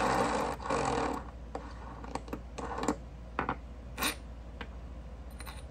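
Handling of a copper fidget spinner while a bearing and its buttons are seated in it: a brief rustling scrape in the first second, then a string of light, sharp metallic clicks and taps.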